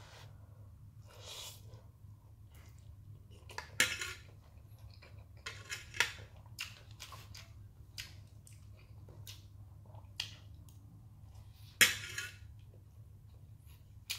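Metal fork clinking and scraping against a plate of noodles, in a scattered series of short sharp clicks, the loudest near the end, with soft eating noises between.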